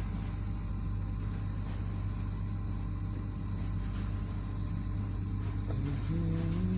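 Mobile crane's engine and hydraulics running with a steady low drone while the telescopic boom's gripper travels to the fourth telescope section. A short tone comes in near the end.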